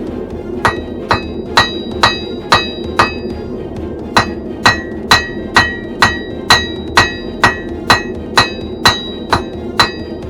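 Hammer blows on an anvil at about two strokes a second, each with a bright ringing tink, with a short pause about three seconds in before the hammering resumes. Underneath is the steady roar of the forge.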